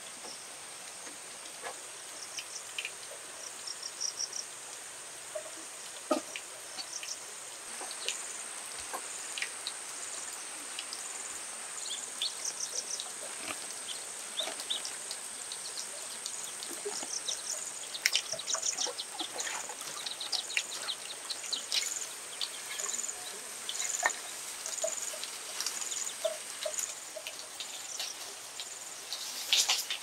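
Outdoor ambience: a steady high-pitched insect drone with short, repeated bird chirps, and scattered light clicks and rustles. A louder cluster of clicks comes near the end.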